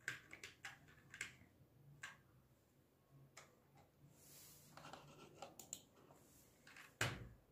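Faint computer keyboard keystrokes: a dozen or so scattered, irregular key taps, with a louder, duller thump about seven seconds in.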